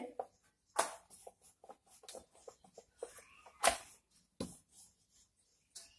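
Rolling pin working dough on a steel plate: soft rubbing with scattered light knocks and taps, the sharpest about a second in and just before four seconds.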